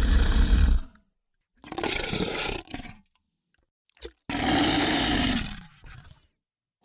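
Monster roar sound effects: three separate rough, growling roars of about a second each, the first the loudest, with a short grunt just before the third, each cut off into dead silence.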